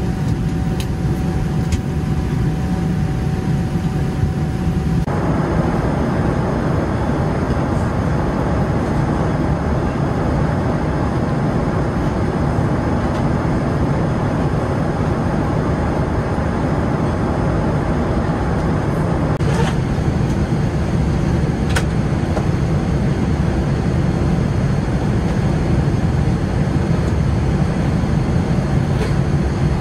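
Cabin noise of a Boeing 787-9 Dreamliner in flight: a steady, deep rumble of airflow and engines. A faint steady tone drops out about five seconds in, and there are a couple of light clicks about two-thirds of the way through.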